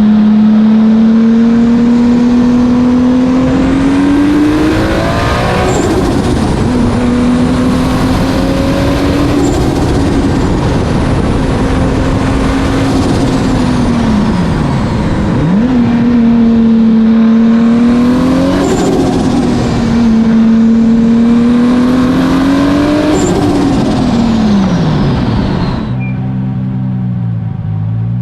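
Turbocharged 2JZ-GTE straight-six in a Nissan Cefiro accelerating hard through the gears: the engine note climbs, drops at each shift, falls away once as the driver lifts off, then climbs again. About two seconds before the end it changes to a steadier, lower hum.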